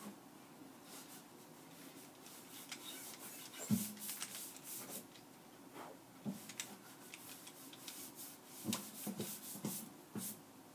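Faint clicking and scraping of a plastic 3x3 Rubik's cube being turned one-handed, its layers turned in quick, irregular moves.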